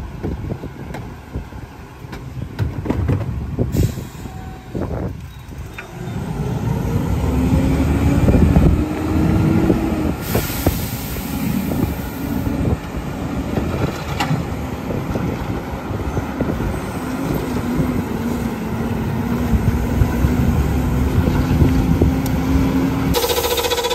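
McNeilus rear-loader garbage truck's diesel engine running and pulling away, with a steady whine over its rumble. About ten seconds in there is a loud hiss of air brakes lasting a couple of seconds.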